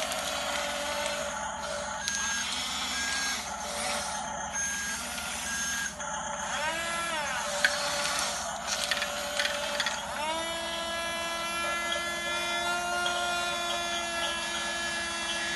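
Electric motors of a radio-controlled model bulldozer whining: short bursts that rise and fall in pitch, then a long steady whine from about two-thirds through that winds down near the end, over a constant mechanical hiss.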